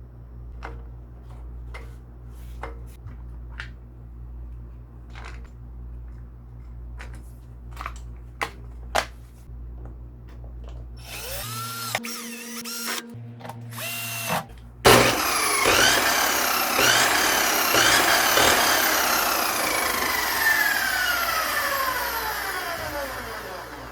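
Light clicks of handling, then the high-speed cut-off saw's motor starts suddenly and loudly about fifteen seconds in. Its whine then falls steadily in pitch as the wheel coasts down. The saw is running again after its power cord was replaced.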